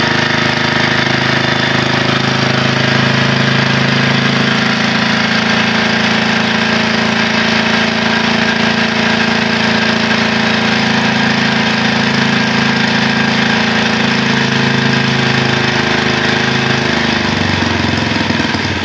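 MK12 pump-set engine running steadily, its carburettor and vaporiser cleaned of the carbon and dirt that had stopped it from picking up speed. Near the end its pitch drops as it slows down.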